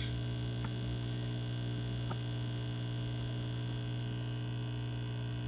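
Aquarium air pump driving a sponge filter, giving a steady low electrical hum, with a couple of faint ticks.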